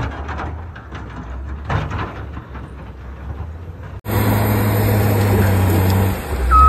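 Uneven rustling with scattered knocks, then from about 4 s in a heavy vehicle's engine running steadily, with a reversing beeper starting to sound just before the end.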